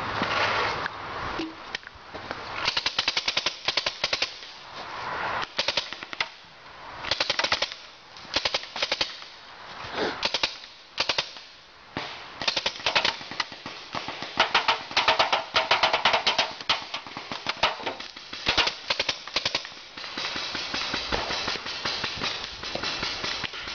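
Paintball markers firing: strings of rapid pops, several shots a second, coming in bursts of a second or two with short pauses between them.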